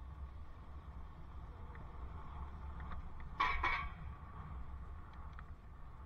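Steady low rumble of wind and riding noise on a bicycle helmet camera, with a brief sharp rattle about three and a half seconds in.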